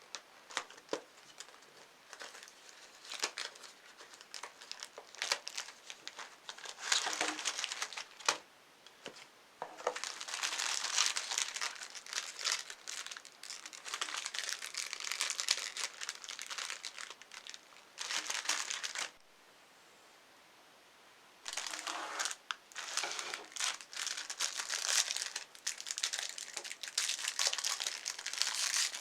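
Dry crinkling and crackling, plastic packaging and crumbly Oreo cookies being handled and crushed. It comes in irregular bursts: sparse at first, then dense stretches with a short pause about two-thirds of the way through.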